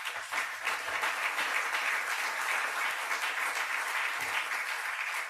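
Large audience applauding steadily, then dying away near the end.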